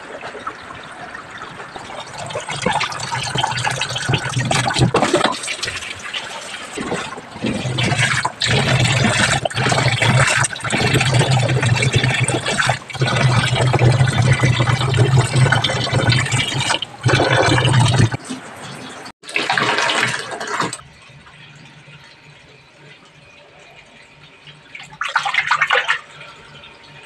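Water rushing and splashing in a twin-tub washing machine over a steady low hum, which cuts off about eighteen seconds in. Two shorter bursts of water noise follow, the second near the end.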